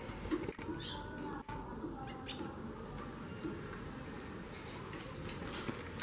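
Caged female white-bellied seedeater (chorão, Sporophila leucoptera) giving short, high chirping calls. This is the 'xaxado' chatter a female makes when in breeding condition. A few sharp clicks fall between the calls.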